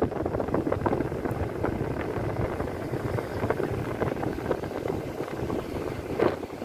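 Wind rumbling and buffeting on the microphone, steady and crackly, with no clear separate event.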